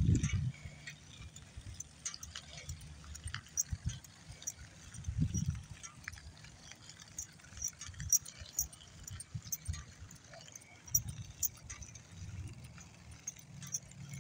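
A dog trotting on leash over asphalt: scattered light clicks and jingles from its claws and harness hardware, over intermittent low rumbles of wind on the microphone.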